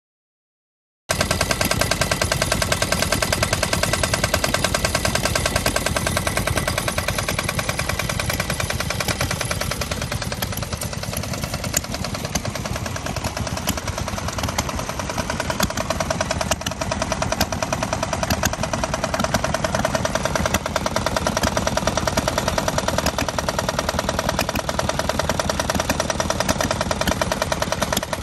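Yanmar L35SS single-cylinder air-cooled diesel engine running steadily, with a rapid, even knock of firing strokes. The sound cuts in abruptly about a second in.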